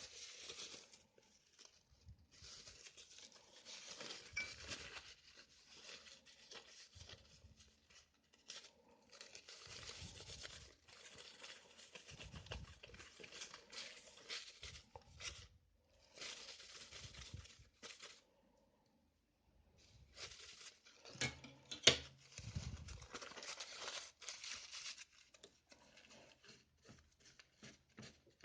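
Hands working on a laptop's plastic case, with faint scraping, crackling and rustling in uneven bursts and a sharp click about two-thirds of the way through.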